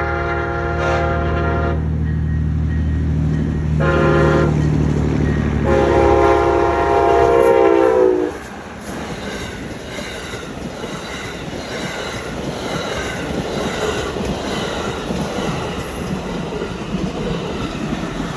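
Amtrak passenger train passing at speed, its diesel locomotive's multi-note air horn sounding the end of a long blast, a short blast and a final long blast whose pitch drops as the locomotive goes by. The engine drone falls away with the horn about eight seconds in, leaving the steady rattle and clickety-clack of the passenger cars rolling past.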